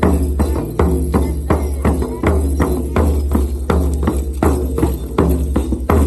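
Large hide frame drums beaten with sticks in a steady rhythm, about three strokes a second, each stroke ringing low.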